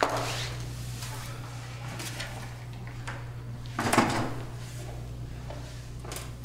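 Short scraping and rustling noises of a person moving at a table, the loudest about four seconds in, over a steady low hum.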